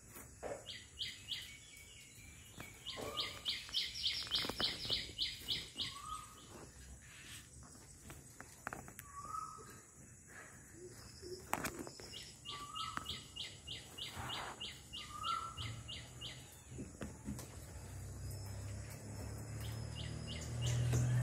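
Bird calling in the background: several runs of quick, evenly spaced high chirps, about six a second, with a lower short note now and then between them.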